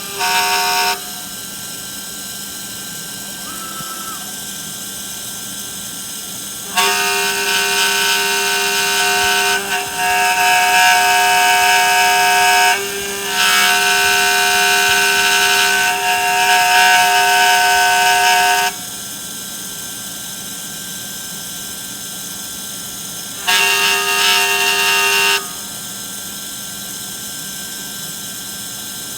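A DIY CNC engraving machine running: its motors whine at a steady pitch in long stretches that stop and start (about the first second, a long run from about 7 to 19 seconds with a brief break, and another short run near the end), over a steady background hum.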